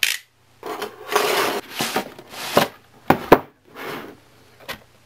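Cardboard packaging being cut open with a utility knife and handled: scraping and rubbing of cardboard for about two seconds, then two sharp knocks in quick succession as the box is set down on a wooden table, and a fainter knock near the end.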